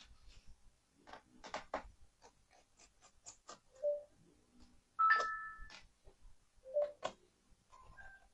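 Faint small clicks and taps of tools and plastic parts as a Lenovo Legion 5 laptop is taken apart, with three brief squeaks, the loudest about five seconds in.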